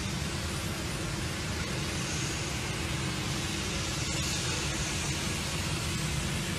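Steady industrial plant noise: a continuous rushing sound with a low, even hum underneath.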